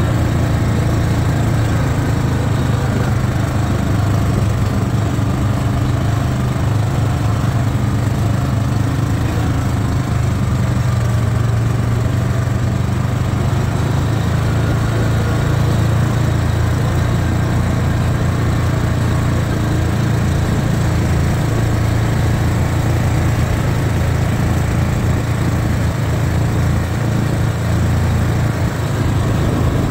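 ATV engine running at a steady pace while riding along a trail, a constant low drone with no marked revving.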